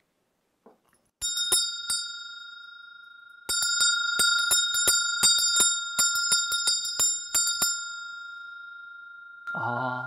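A shaman's hand bell with a wooden handle, rung to open a gongsu (spirit-message) divination. A few strikes come about a second in, then a fast run of ringing at roughly five strikes a second, then a long fading ring. A man's voice comes in near the end.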